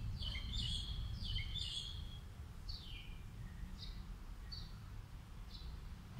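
A bird chirping: short, high, falling chirps, a quick run of them in the first two seconds, then single chirps about once a second, over a low steady rumble.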